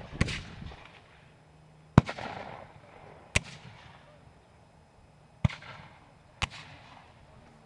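Black-powder muskets firing blank charges as single, unevenly spaced shots, five in all, the loudest about two seconds in, each followed by a short echo rolling away.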